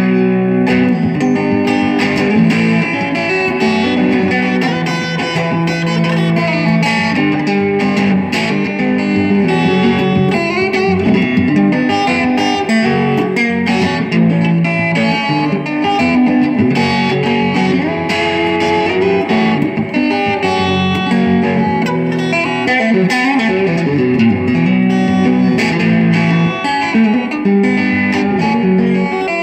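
Line 6 Variax Yamaha electric guitar played through a Laney amplifier, fingerpicked with a capo on the neck: a continuous instrumental passage of plucked melody and chords.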